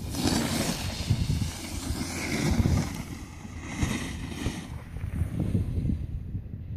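Wind buffeting the microphone while moving downhill on a ski slope, with the hiss of edges scraping across packed snow swelling up a few times.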